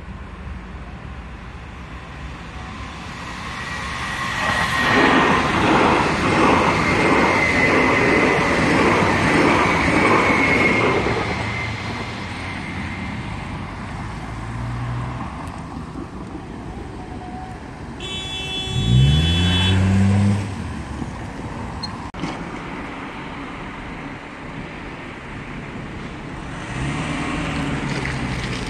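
ER75 electric multiple unit passing over a level crossing, a loud rushing rumble with a steady high whine lasting about seven seconds. Later, road traffic drives over the crossing, one vehicle accelerating with a rising engine note about nineteen seconds in.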